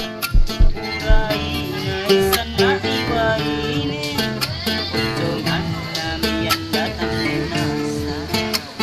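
Music with plucked guitar and a singing voice over a steady beat.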